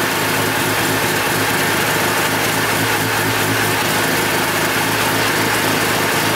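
Mazda FC RX-7's bridgeported 13B rotary engine running steadily at idle.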